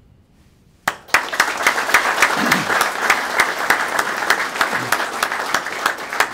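Audience applauding. It starts suddenly about a second in and stops near the end.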